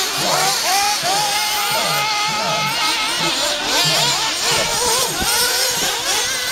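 Several small engines of radio-controlled off-road buggies running at high revs together, each rising and falling in pitch as the cars accelerate and back off around the track.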